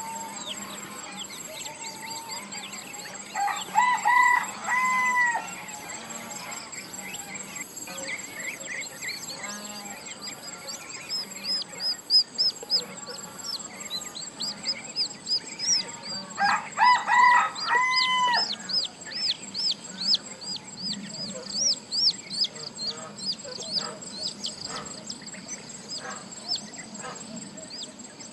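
A rooster crowing twice, each crow a few short notes ending in a long held one. Between and after the crows come many quick, high chirps from small birds or chicks.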